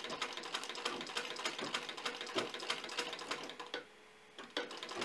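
A 1924 Singer sewing machine, belt-driven at the handwheel, stitching a seam through leather. It makes a rapid, even ticking and clacking from the needle-bar mechanism, which pauses briefly a little before the end and then starts again.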